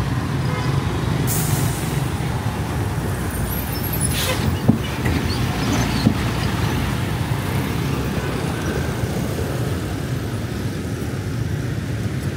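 Steady low rumble of a motor vehicle's engine, with a short hiss about four seconds in and a sharp click just after.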